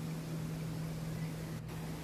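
Steady rushing hiss of falling water from a home waterfall, with a constant low hum under it. The hiss briefly drops out about one and a half seconds in.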